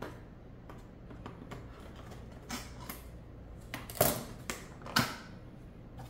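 Scissors cutting into a cardboard box and the box being pulled open: a string of short clicks and snips, with two louder sharp sounds about four and five seconds in.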